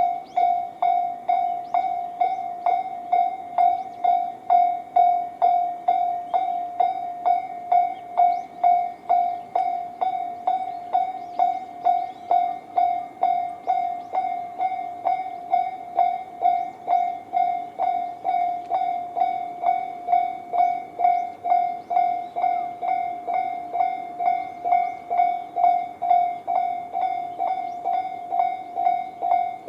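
Japanese railway level-crossing electronic alarm bells, the Tobu 'sound C' type sounding from both sides of the crossing. It rings a steady, even, rapid ding of two to three strokes a second, which means the crossing is active for an approaching train.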